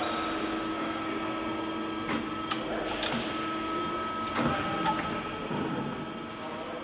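Amada Promecam ITPS2 30.12 press brake running a bend on a sheet-metal strip: a steady machine hum with a held whine, and a few sharp clicks and knocks from about two seconds in as the ram comes down and the sheet folds.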